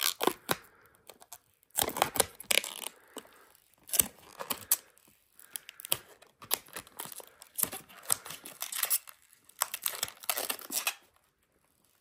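Protective plastic film being peeled off the side of a robot vacuum cleaner: irregular crackling and tearing in fits and starts, stopping about a second before the end.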